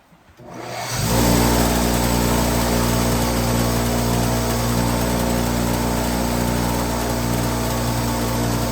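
A machine's motor starts about a second in, builds up over about a second, then runs steadily and loudly.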